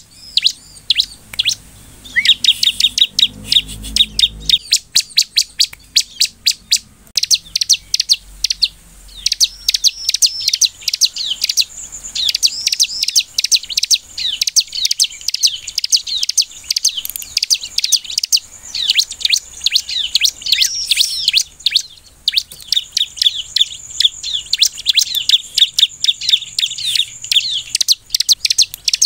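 Bar-winged prinia (ciblek) singing: long runs of rapid, sharp, high chirps and trills with only brief breaks.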